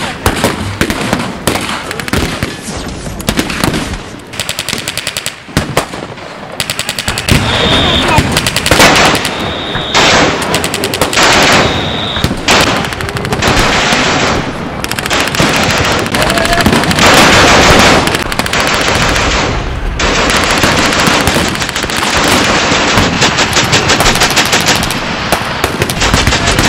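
Blank-fire gunfire from a WWI battle reenactment: scattered rifle shots at first, then, about seven seconds in, dense rapid machine-gun fire mixed with rifle shots.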